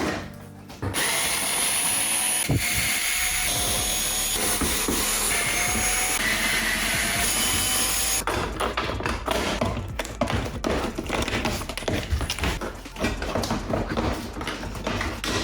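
Cordless drill/driver running steadily for several seconds, as when backing screws out of a plastic toy car body, followed by irregular clicks and rattling of parts being handled.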